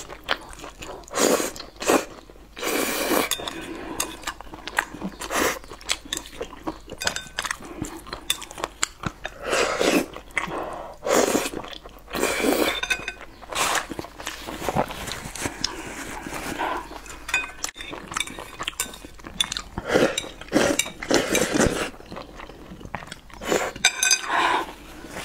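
Close-miked slurping of noodles in sauce, a series of loud slurps drawn in one after another, with chewing and chopsticks clinking against a ceramic bowl between them.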